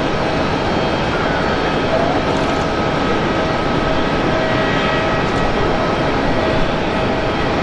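Airbus A350-900's Rolls-Royce Trent XWB turbofan engines at taxi idle: a steady rush with a whine of several steady tones over it.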